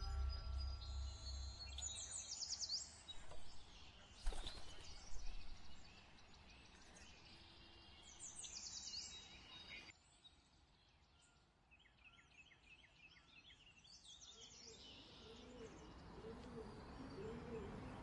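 Faint outdoor ambience with birds chirping. There are clusters of quick high chirps about three seconds in and again near nine seconds; it dips almost to silence around ten seconds, then faint repeated bird calls pick up again.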